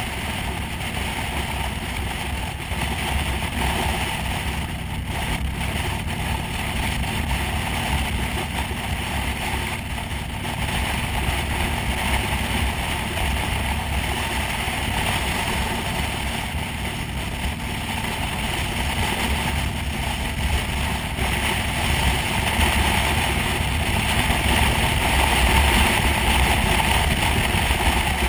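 Motorcycle cruising at road speed: steady wind rush over the microphone with the engine's low drone underneath, growing a little louder in the last few seconds.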